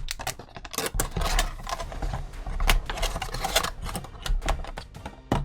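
Cardboard blaster box and foil-wrapped trading card packs being handled and opened by hand: a quick, irregular run of clicks, rustles and crinkles with a few low thuds.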